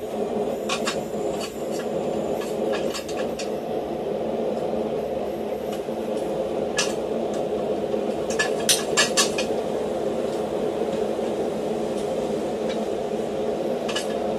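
Steady rushing noise of a running forge, with scattered light metallic clicks and taps of tongs and iron on the anvil. A quick run of three or four sharper taps comes about nine seconds in.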